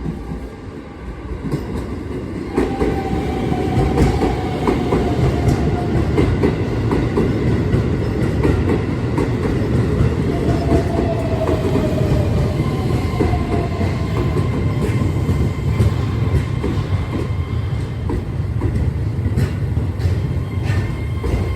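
Keihan 3000 series electric train running into a station, its wheels clattering over the rail joints over a steady rumble. The sound swells over the first two seconds, and a faint tone slides downward twice.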